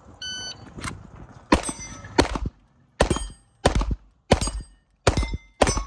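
Shot timer beeps once, then a handgun fires about seven shots in quick succession, roughly two-thirds of a second apart, at steel plate targets, which ring with a clang after the hits.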